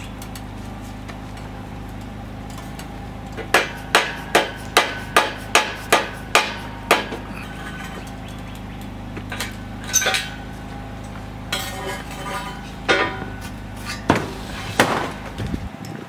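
Hammering on a metal canopy-frame joint: a quick run of about nine sharp strikes, then a few scattered knocks, as the fitting is driven onto the post.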